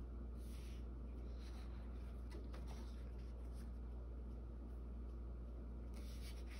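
Paper rustling as the pages of a coloring book are turned: one soft rustle about half a second in and another near the end, over a steady low hum.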